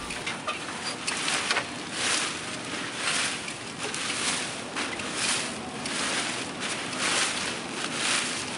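Nylon spinnaker cloth rustling and flapping in repeated surges, about once a second, as the sail is pulled down and bundled in, over a steady hiss of wind and water.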